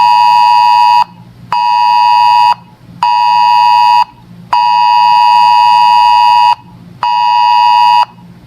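Weather radio alert tone: a loud, steady electronic beep near 1 kHz repeating about one second on and half a second off, with one beep held about twice as long in the middle. It signals an incoming weather alert.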